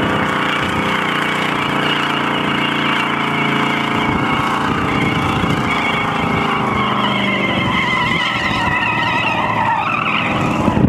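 AMC muscle car doing a burnout: the engine is held at steady high revs while the rear tyres spin and squeal, with the squeal wavering more in the second half.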